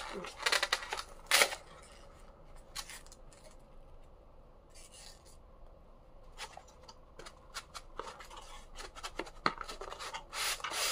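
Cardboard box being opened by hand, its inner tray sliding out: short scrapes and rustles of cardboard, loudest in the first second and a half and again near the end.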